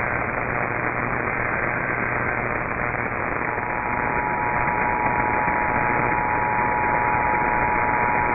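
Radio receiver hiss and static with no program audio. A faint steady whistle sounds for the first two seconds, then two close steady tones from about three and a half seconds in.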